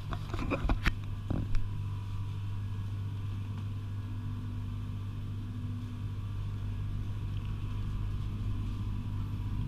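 Steady low electrical hum of refrigerated glass-door drink coolers, with a few clicks and knocks in the first second and a half.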